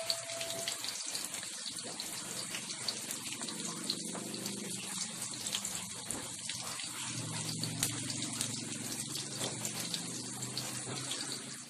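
Battered fish fillets deep-frying in hot oil in an aluminium wok: a steady sizzle with many fine crackling pops. A low hum joins about four seconds in.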